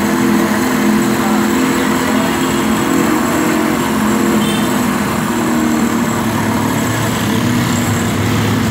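Cotton candy machine running with a steady mechanical hum as its spinning head throws out sugar floss. The hum shifts lower about seven seconds in.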